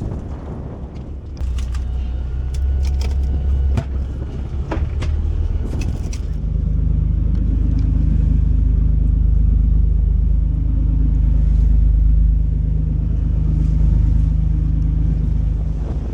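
Fishing boat's engine running with a steady low rumble that picks up about six seconds in, over wind noise. A few sharp clicks and knocks come in the first few seconds.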